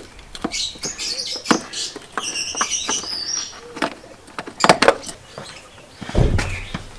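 Scattered clicks and knocks of hands working at plastic trim, wiring connectors and hoses in a car's engine bay. Birds chirp briefly about two seconds in, and there is a dull thump near the end.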